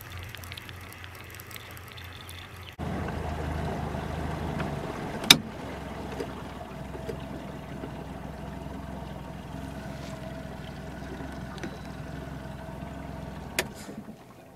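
A boat's motor running steadily, a low hum with a held whine over it, which cuts in suddenly about three seconds in after a stretch of faint wind and water. Two sharp clicks stand out over it, about five seconds in and near the end.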